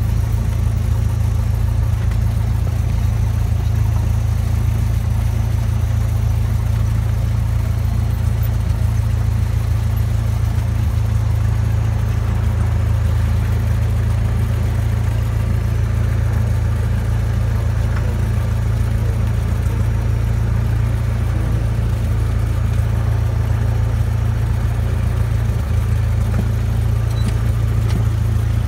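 Cessna 172's piston engine and propeller running steadily at low power while the aircraft taxis, heard from inside the cabin as a constant low drone with no change in pitch.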